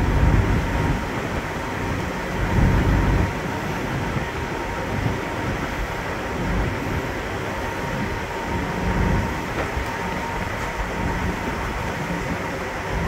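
Steady rumble of the MV Saaremaa 1 ferry's engines with a faint steady whine, while a stiff wind buffets the microphone in gusts, strongest at the start and about two and a half seconds in.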